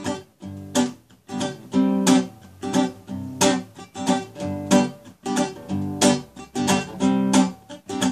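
Classical acoustic guitar strummed in a steady rhythmic chord pattern, about two to three strokes a second, with no voice.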